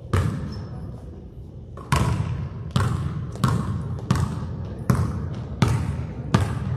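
A basketball bouncing once, then dribbled steadily on a gym floor, about one bounce every three-quarters of a second, each bounce echoing in the large hall.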